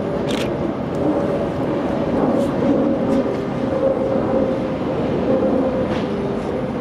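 An ICE electric high-speed train rolling slowly past over the station pointwork: a steady rumble with a faint hum held at a constant pitch, and two short sharp clicks, one about half a second in and one near the end.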